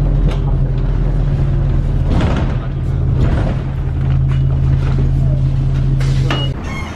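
City bus heard from inside the cabin while riding: a steady low engine hum that dips slightly in pitch about two seconds in, with a few short knocks and rattles from the bus body.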